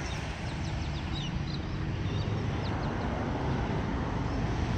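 Short bird chirps, mostly in the first three seconds, over a steady low rumble.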